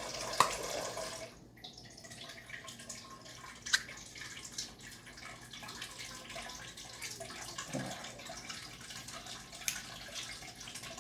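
Water from a tap running and dripping into the rice cooker's inner pot, which is being filled to soak, with three short sharp clicks.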